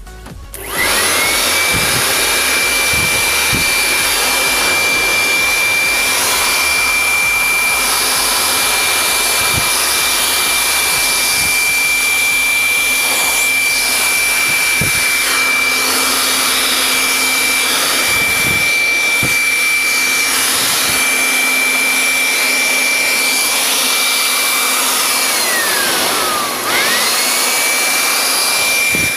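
Bosch GBL 620 electric air blower running at full speed, blowing dust off a circuit board: loud rushing air under a steady high motor whine. It starts up about a second in; near the end the motor briefly slows, its whine falling, then spins straight back up.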